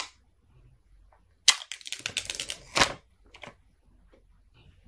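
Seal strips being torn off a new iPhone 12 Pro Max box: a rapid crackling rip of paper about a second and a half in, lasting over a second and ending in a sharper snap, with a few lighter clicks of fingers on the cardboard box around it.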